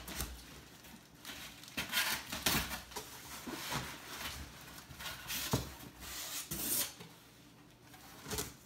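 Large cardboard shipping box being opened by hand: flaps bent back and hands rummaging inside, in irregular bursts of rustling and scraping.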